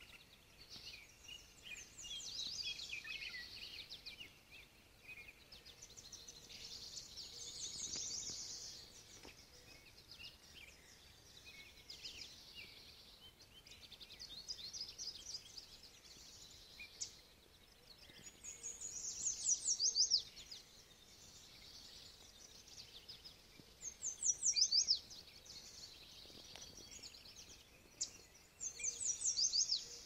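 Songbirds singing in spring woodland: short high songs of rapid notes repeated every few seconds, several of them falling quickly in pitch, with the loudest phrases near the end.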